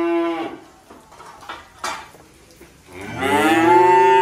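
Cattle mooing: a call that ends about half a second in, then a second, louder moo about three seconds in that lasts nearly two seconds.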